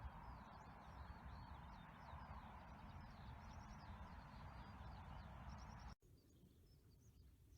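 Small birds chirping and twittering in quick, overlapping short calls over a faint steady background hiss and rumble. About six seconds in, the sound cuts abruptly to a quieter background with a few fainter chirps.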